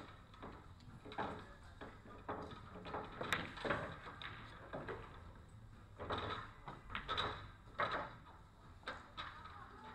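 Irregular sharp clicks and knocks of pool balls and cues from play in a billiard hall, over a low steady hum, with faint indistinct voices.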